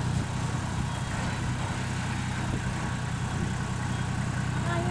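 Bulldozer engine running steadily at a low, even pitch.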